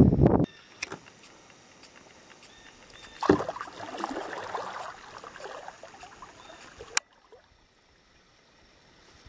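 Water splashing and sloshing against a canoe, starting suddenly about three seconds in and lasting for several seconds before cutting off. A brief rumbling rustle is heard at the very start.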